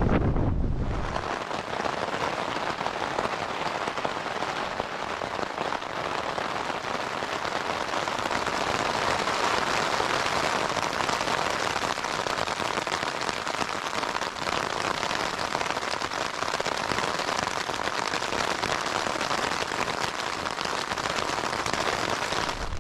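Wind rumbling on the microphone for about the first second, then steady, heavy rain falling on a nylon tent fly, heard from inside the tent as a dense, even patter.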